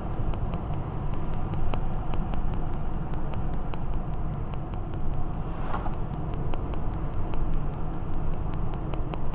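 Steady road and engine noise heard from inside a moving car's cabin at open-road speed, with a constant low rumble.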